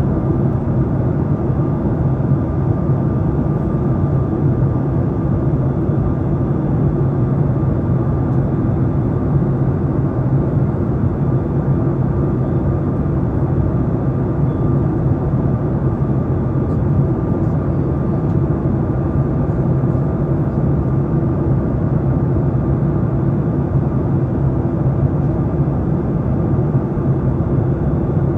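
Boeing 737-8 MAX cabin noise in flight: its CFM LEAP-1B turbofans and the airflow over the fuselage make a steady, low, even rumble, with a faint steady tone above it.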